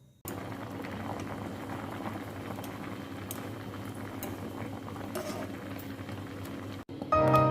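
Liquid boiling in a pot, bubbling steadily with scattered small pops and clicks.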